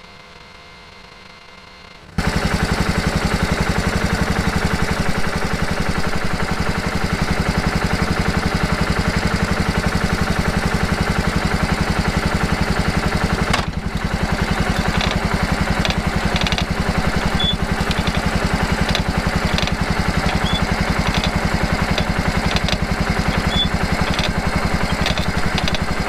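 Kawasaki Prairie KVF360 ATV's single-cylinder engine running steadily with a fast, even pulse. It starts suddenly about two seconds in, after faint hiss. Short sharp clicks come now and then in the second half.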